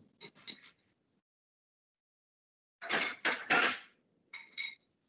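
Dishes and cutlery clinking and clattering in short bursts, with stretches of cut-off silence between, as heard through a participant's open microphone on a video call. There are light clinks near the start, the loudest clatter about three seconds in, and a few ringing clinks near the end.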